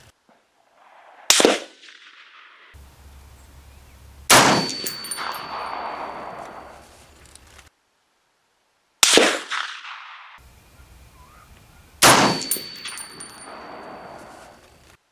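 Four shots from a Springfield Armory M1A .308 semi-automatic rifle, a few seconds apart, each sharp crack followed by a long echoing decay with a faint metallic ring.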